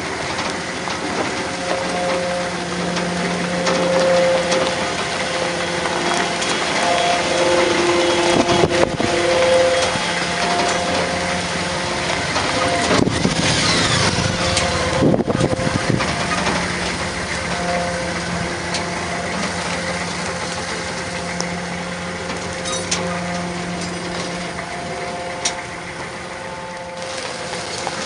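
Tow vehicle's engine running with tyres crunching over gravel as it pulls a sailboat on a trailer. A motorcycle passes close by about halfway through.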